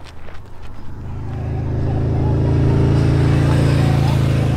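Motorcycle engine approaching along the road, growing louder over the first couple of seconds and then holding a steady note.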